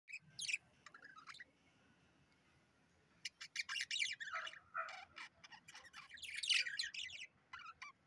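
Budgerigars chirping and chattering in quick, high bursts. There is one short burst at the start, then a longer run of rapid chirps from about three seconds in that is loudest around four and six and a half seconds.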